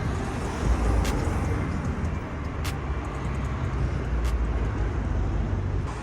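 Steady low rumble of motor vehicle noise, with a few faint, short high ticks.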